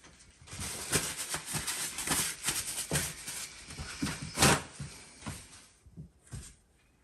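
Handling noise: a run of rustles, clicks and knocks as the camera is set down and hands move around a clear plastic egg tub. The loudest knock comes about four and a half seconds in, and the noise then dies away to a few light taps.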